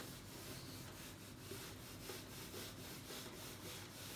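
Whiteboard duster wiping marker off a whiteboard, a faint run of quick, repeated back-and-forth rubbing strokes.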